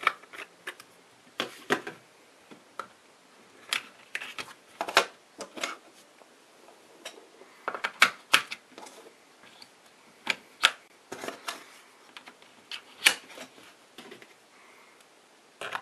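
Sharp, irregular clicks and taps of hard plastic as a Tacklife DM04 pocket digital multimeter's rear battery compartment is worked on by hand, with a 9-volt battery fitted and the cover pressed shut.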